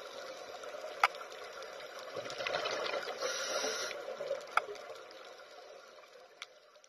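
Water noise that starts suddenly, swells and then fades away, with three sharp clicks over it.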